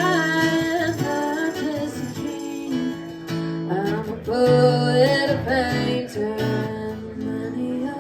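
Music: an acoustic guitar played in an instrumental passage of a song, chords ringing under a melody line that bends in pitch in places.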